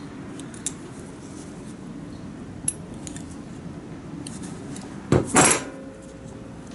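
Hand tools and small metal parts clinking during mechanical work: a few light clicks, then a louder double clatter about five seconds in that rings briefly.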